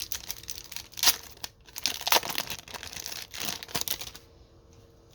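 A hockey card pack wrapper being torn open and crinkled by hand, in a quick run of crackling tears for about four seconds before it stops.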